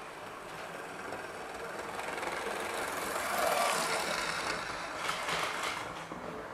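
Model train running on the layout track, its motor and wheels growing louder to a peak about three and a half seconds in and then fading. A few short clicks come about five seconds in.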